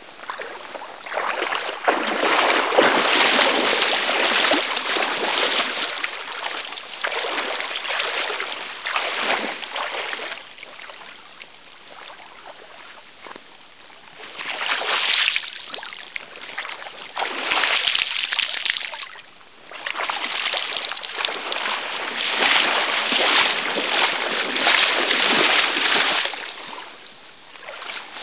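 Water splashing and sloshing in surges of a few seconds as a person in an orange survival suit moves about in the water, with quieter spells in the middle.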